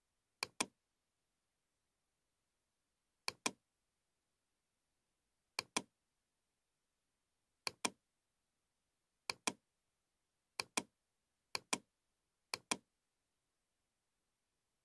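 Computer mouse clicks, eight in all, each heard as a quick pair of clicks (button press and release), in otherwise dead silence. They come a couple of seconds apart at first and closer together near the end, each click placing the next point of a spline.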